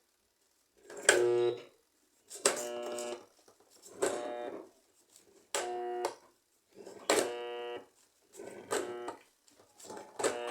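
Sugar tanquinho washing-machine motor switched on again and again, about seven times: each time a click, then a short steady hum as the powered motor locks instead of turning. The motor is seized, which the repairman puts down to a bushing worn by water damage.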